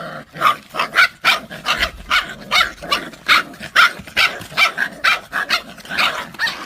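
Dogs fighting, barking in a quick run of short, sharp barks and snarls, about two or three a second.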